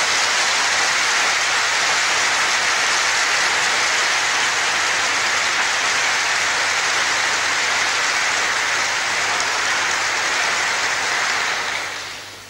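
A large audience applauding: sustained, dense clapping that fades away near the end.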